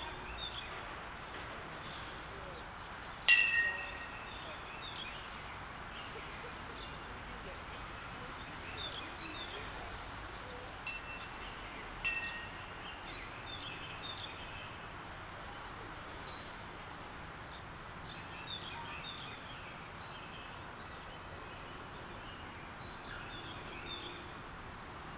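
A sharp metallic clang about three seconds in that rings for about half a second, then two fainter ringing clinks near the middle. Birds chirp faintly throughout over a steady outdoor hiss.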